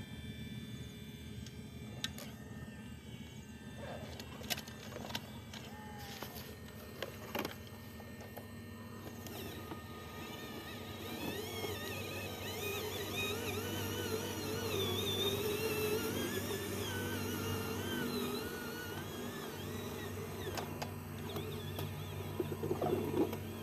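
Electric motors and gears of a radio-controlled Volvo hydraulic excavator model whining over a steady low hum, with scattered clicks and knocks. About halfway through the whine grows louder and its pitch wavers up and down as the machine works.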